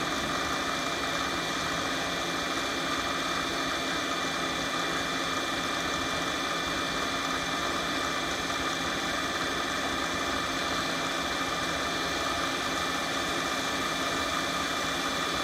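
Bridgeport J-series milling machine's 1 hp spindle motor running steadily, with the automatic quill power feed engaged and driving the quill downward; a steady hum with a few constant whining tones.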